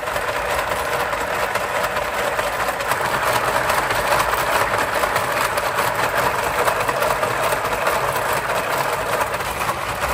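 A 3D-printed braiding machine running: its bobbin carriers travel around the guide track with a dense, steady rattle of fast ticks as the threads are braided into a cord.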